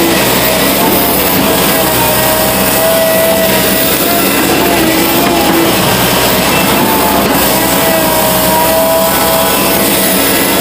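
Steady diesel engine and hydraulic noise of an excavator at work, mixed with background music carrying a few held, wavering tones.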